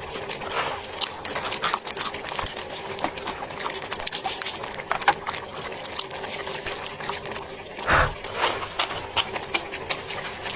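Mukbang eating sounds: close-up chewing and crunching, a steady run of small crackles and clicks, with one louder thump about eight seconds in.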